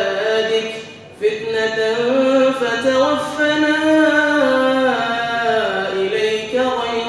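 A man's voice chanting a dua (Islamic supplication) in long, drawn-out melodic phrases, with a short breath pause about a second in.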